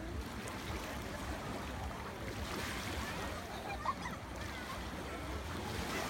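Sea surf washing on the shore: a steady noisy wash over a low rumble, with faint distant voices and a brief click about four seconds in.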